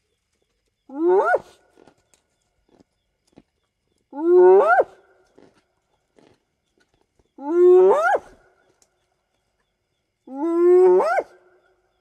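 Spotted hyena whooping: four whoops about three seconds apart, each swooping up in pitch at its end. The whoop is the long-distance contact call between clan members.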